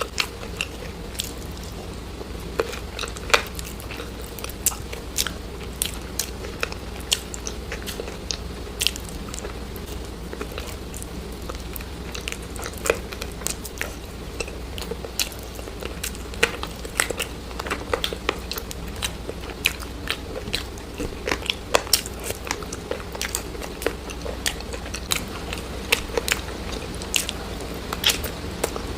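Close-miked chewing and biting of crunchy food: irregular sharp crunches and crackles, several a second, over a steady low hum.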